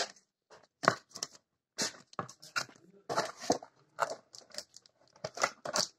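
Paper and packaging being handled during unboxing: a run of short, irregular crinkles, rustles and light taps as the manual is set aside and hands work in the box's tray among the bagged accessories.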